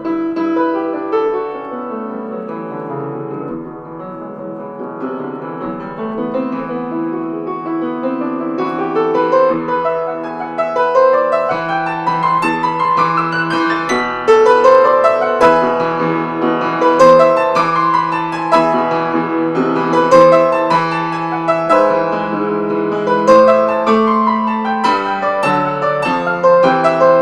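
Solo piano playing fast runs of notes over a held low bass note. It is softer about three to five seconds in, then grows louder with quick rising and falling runs from about halfway.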